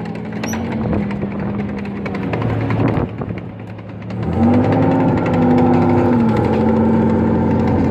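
Tracked armoured vehicle's engine running as the vehicle drives past, then revving higher and louder about four seconds in and holding there.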